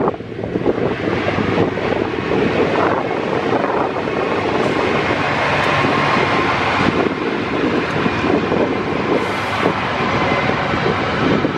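A freight train's three GE diesel-electric locomotives, two C36-7s and a C44EMi, pass close by with their engines running under load.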